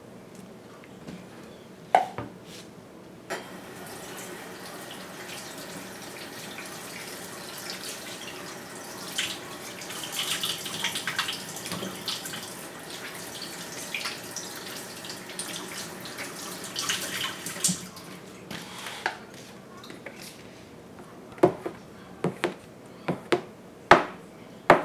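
A kitchen tap running into the sink in a steady rush, after a single knock about two seconds in. Near the end the water has stopped, and a utensil clacks sharply against a plastic mixing bowl as cheesecake batter is stirred.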